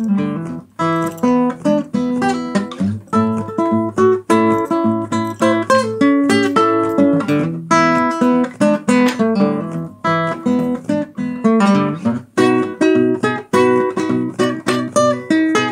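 Background music: an acoustic guitar playing a quick run of plucked notes.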